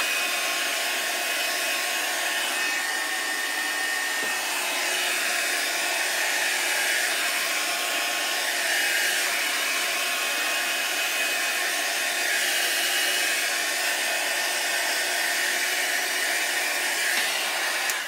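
Revlon hand-held hair dryer running steadily, a continuous rush of air with a faint motor whine, cutting off at the very end.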